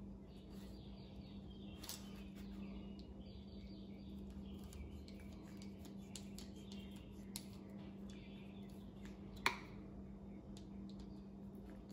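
Screwdriver tightening the small hose clamps on an outboard's fuel-filter hoses: faint scrapes and ticks of the tool on the clamp screws, with one sharp click about nine and a half seconds in, over a steady low hum.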